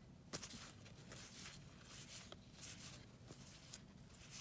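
Faint handling of cardboard trading cards: cards slid one at a time off a hand-held stack, giving several soft, irregularly spaced swishes and light ticks of card against card over a low steady hum.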